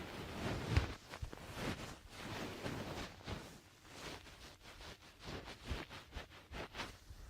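ASMR towel massage: a towel rubbed in soft rustling swishes, with light taps scattered through.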